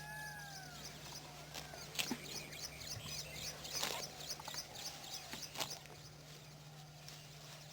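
Wild birds calling: a rapid, repeated high chirping runs throughout, with two arched whistled calls right at the start. A few sharp clicks are heard over a steady low hum.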